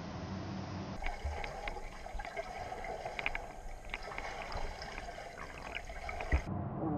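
Underwater recording of a swimmer breathing out bubbles, which bubble and pop with scattered crackles. The sound starts with a cut about a second in and stops abruptly near the end. Before it comes a low steady hum.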